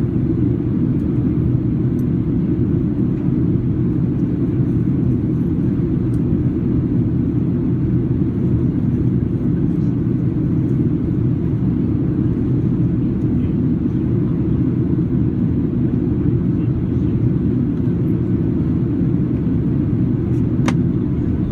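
Steady cabin noise of a Boeing 737-800 in flight: its CFM56-7B engines and the airflow over the fuselage heard from a seat by the wing, a low, even rumble. One brief click near the end.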